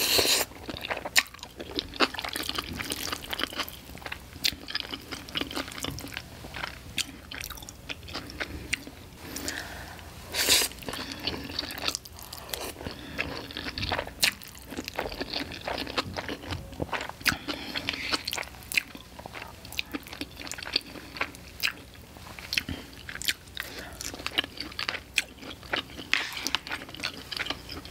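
Close-miked eating of curry pad thai noodles: wet chewing with many small mouth clicks and a few louder slurps as noodles are drawn in from chopsticks.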